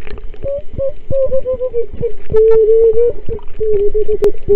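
A woman singing a wordless tune into her snorkel underwater, a muffled voice held in long notes that step down in pitch. Short low knocks sound throughout, with a sharp click about four seconds in.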